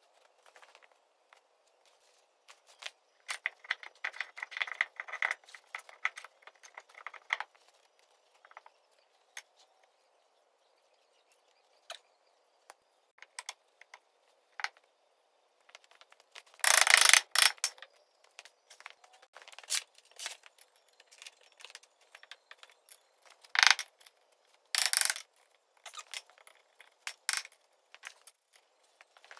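Metal parts of a Ford TW25 tractor's front axle hub clinking, scraping and knocking as the hub is worked onto the splined shaft and the kingpin refitted. A stretch of rattling scrapes comes between about three and seven seconds in, then scattered clicks and a few heavy metal knocks, the loudest about seventeen seconds in and two more near the end.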